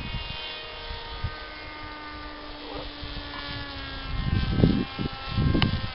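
Whine of a radio-controlled X8 flying wing's motor in flight, heard from the ground, its pitch shifting a little a couple of times. Wind buffets the microphone in the last two seconds.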